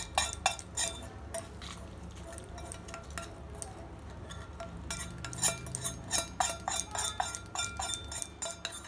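Metal spoon clinking and scraping against steel cookware as a spice tempering (popu) is scraped into the lemon rasam: a few sharp clinks at the start, a quieter stretch, then a run of quick clinks from about five seconds in.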